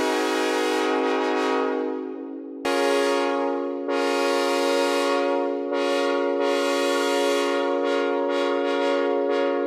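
Synthesized train horn sounding a chord of several notes. The held chord fades out about two seconds in, then comes back sharply and is sounded again in a run of blasts of varying length.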